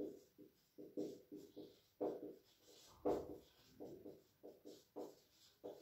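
Marker pen writing on a whiteboard: a quick run of many short strokes with a brief pause a little past the middle.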